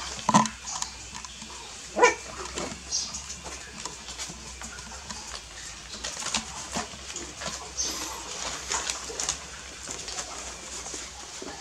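Young puppies squeaking and whining as they play-fight and mouth each other, with two sharper yelps about half a second and two seconds in. Paws scuffle and scratch on cloth in between.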